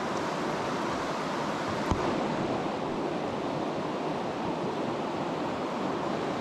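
Steady rush of a fast, shallow mountain stream running over rocks and boulders, with a single light knock about two seconds in.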